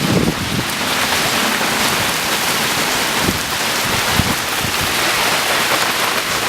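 Hail and rain pelting down in a dense, steady hiss. A few short gusts of wind buffet the microphone near the start and around the middle.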